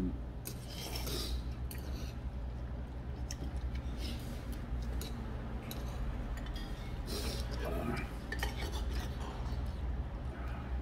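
Metal chopsticks clinking and scraping against a metal bowl as black-bean noodles are mixed, in scattered light clicks over a steady low hum.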